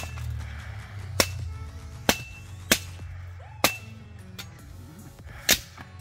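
Six sharp cracks at uneven intervals, roughly a second apart, some followed by a short ring, over a low steady hum and faint background music.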